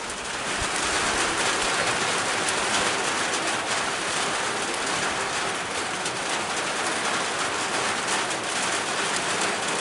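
Heavy rain falling as a steady, dense hiss that grows louder about half a second in.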